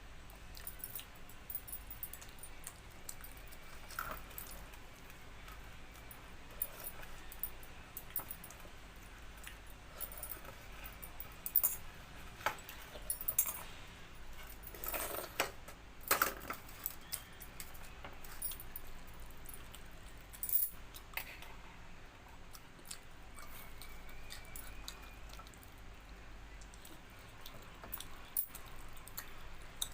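Eating sounds: scattered light clicks and clinks from the plate and dishes, with chewing, over a quiet room.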